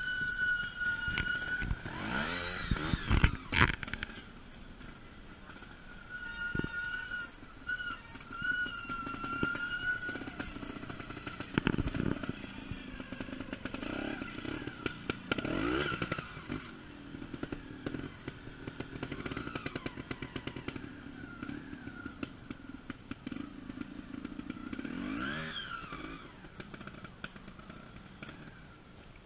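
Trials motorcycle engines revving in short bursts, pitch rising and falling several times as the bikes are ridden up a muddy section, the loudest bursts about 3 and 12 seconds in. A steady high-pitched tone comes and goes in the background.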